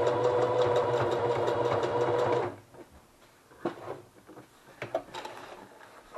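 Electric sewing machine running a fast burst of stitching on a test piece of fabric, stopping suddenly after about two and a half seconds. A few light knocks follow.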